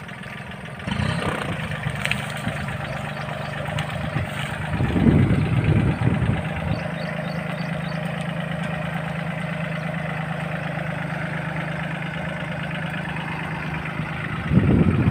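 Small 4x4 compact tractor's diesel engine running steadily at low revs as it drives out of the cane rows, with a couple of louder surges along the way.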